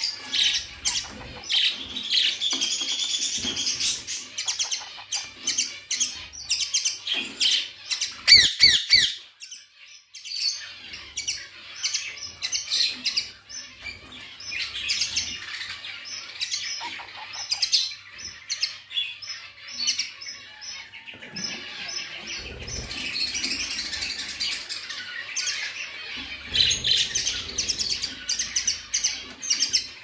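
Caged parakeets chirping and chattering in a dense, rapid stream of short calls. A cluster of louder, sharper squawks comes about eight seconds in, followed by a brief lull.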